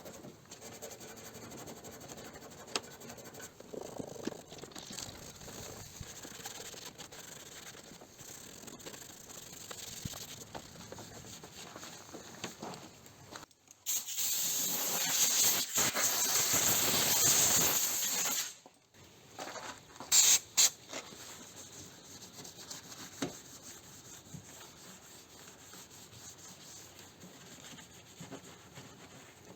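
A pressurised spray hisses steadily for about four seconds, then stops abruptly, followed by two short spray bursts, over faint rubbing and handling noise.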